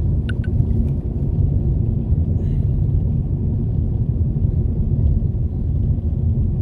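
Steady low rumble of a car on the move, heard from inside the cabin: road and engine noise. Two short clicks sound just after the start.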